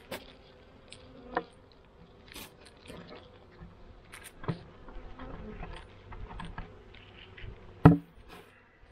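Honey bees buzzing from an open hive, a steady hum, broken by a few knocks as the foil-faced insulated hive cover is handled; the loudest knock comes near the end as the cover is set down on the wooden hive box.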